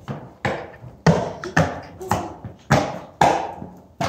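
Skateboard wheels slapping down again and again on a concrete floor, about two clacks a second, each ringing briefly in the big shed: the rhythm of tic-tacs, the board's nose lifted and set down from side to side.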